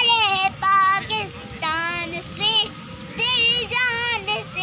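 A young boy singing an Urdu patriotic song unaccompanied, in a high voice, in short phrases broken by brief pauses for breath.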